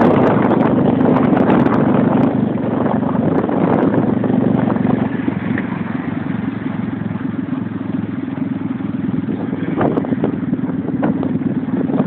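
Motorcycle engine running steadily at low revs on a descent, with rattles and knocks from the bike. The engine is louder for the first couple of seconds, then settles, and a few sharp knocks come near the end.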